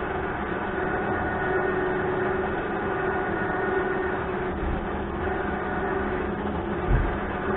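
Steady mechanical hum from a running motor or engine, with one short low thump about seven seconds in.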